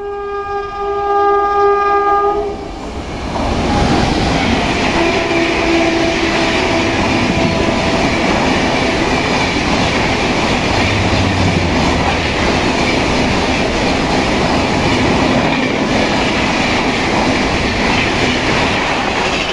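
Indian Railways express train passing through a station at speed. Its locomotive sounds a long horn blast for the first two and a half seconds and a fainter one around five seconds in, then the LHB coaches rush and rattle past close by without letting up.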